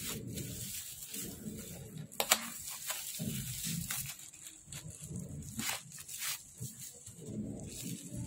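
Bubble wrap and plastic packaging crinkling and tearing as it is pulled off and rolled up by hand, with scattered crackles, the sharpest about two seconds in.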